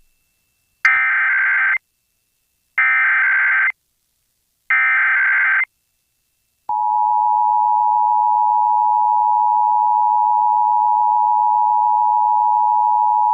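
Emergency Alert System SAME header: three one-second bursts of warbling data tones about a second apart, encoding a Required Monthly Test. About seven seconds in, the steady two-tone EAS attention signal (853 and 960 Hz) begins and holds.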